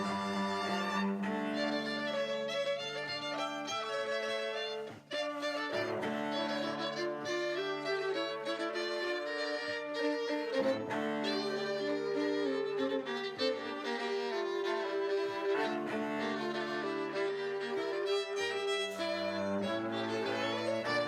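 A string ensemble playing a piece with bowed violins over sustained lower string notes, pausing briefly about five seconds in before going on.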